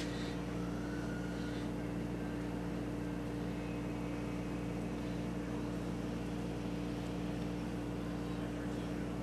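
Steady electrical hum with a few fixed, unchanging tones and a low rumble underneath.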